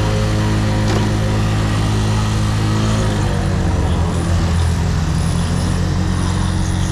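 Motorcycle engine running steadily at low speed, its note dropping a little about three seconds in.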